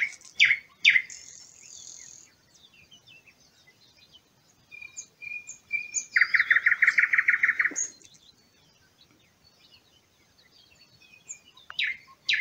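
Wild songbirds singing: a few sharp, falling whistled notes near the start and again near the end, and a loud rapid trill of about a dozen even notes, about eight a second, in the middle.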